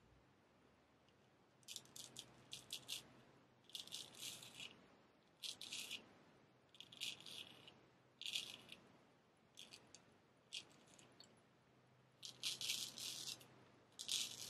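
Straight razor scraping through lathered stubble in short strokes: about nine short bursts of crisp rasping, each group a second or so apart.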